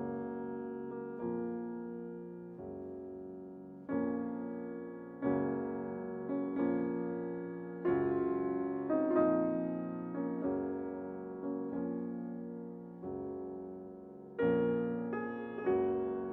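Slow, gentle piano music: sustained chords struck about every one to one and a half seconds, each fading before the next.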